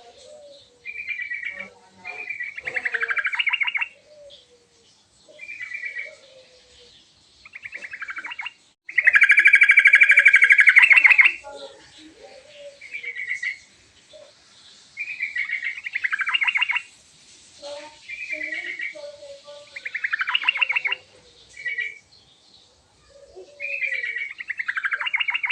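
Sooty-headed bulbul (trucukan) singing: short chattering phrases repeated every second or two, with a louder rapid trill about nine to eleven seconds in, and fainter low notes between the phrases.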